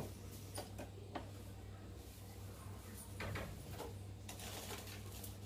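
Faint steady low hum of a lit gas stove burner under a pan of warming oil, with a few light clicks. A soft hiss rises near the end.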